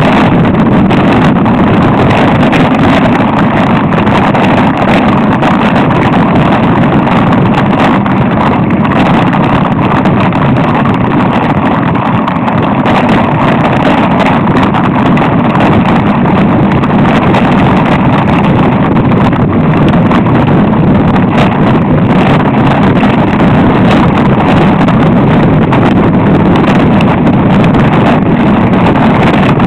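Loud, steady wind buffeting and rumble on the microphone of a camera riding on a mountain bike over a rough dirt trail, with the rattle and jolting of the ride mixed in.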